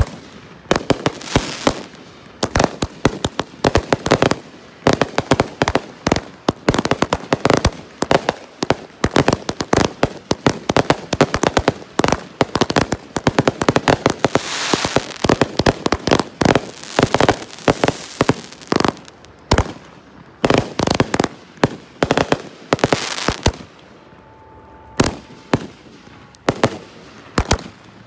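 Consumer fireworks going off in rapid succession: a fast, irregular string of bangs, pops and crackles from ground fountains and aerial bursts, with a hissing stretch about halfway through and a short lull near the end before the bangs resume.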